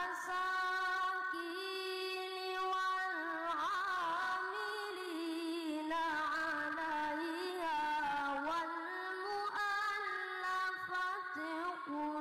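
A young boy's high voice reciting the Quran in the melodic tilawah style through a microphone, holding long notes and winding into wavering ornamented runs that rise and fall in pitch.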